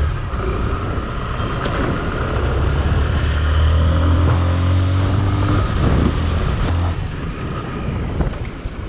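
Motorcycle engine running under way, with wind rushing over the microphone. The engine note rises for a couple of seconds around the middle as it speeds up.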